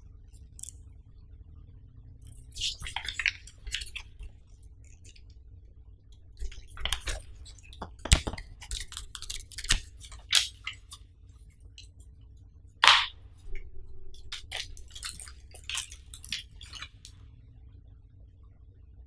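Paper and plastic handling noises: an instruction sheet and small plastic accessory bags rustling and crinkling, with scattered sharp clicks and ticks and a few louder snaps about 8, 10 and 13 seconds in.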